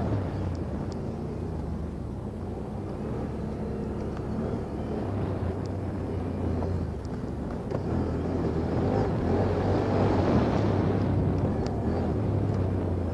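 Off-road vehicle engine running, its revs rising and falling, loudest about ten seconds in.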